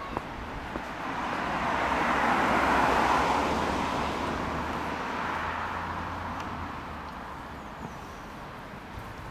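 A road vehicle passing by, its noise swelling to a peak about three seconds in and then fading away.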